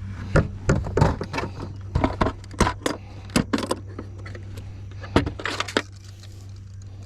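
A quick, irregular series of sharp clicks, knocks and rattles, like gear being handled in a fishing boat, stopping after about six seconds. A steady low hum runs beneath it throughout.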